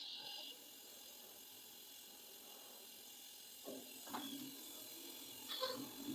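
Faint, steady hiss of gas blowing through a freezer's refrigeration lines during flushing, with a few light knocks about four and five and a half seconds in.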